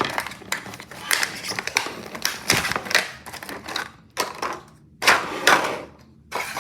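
Retail packaging of a Rubik's Cube being worked open by hand: rapid clicking and crinkling of plastic and cardboard, with a few louder rustling bursts about two and five seconds in.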